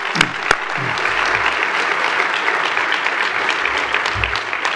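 Audience applauding steadily, with a couple of sharp, loud single claps near the start.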